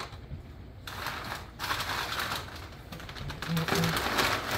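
Butcher paper and a thin aluminium foil pan rustling and crinkling as a paper-wrapped brisket is set into the pan and pressed down, a run of uneven scrapes and crackles.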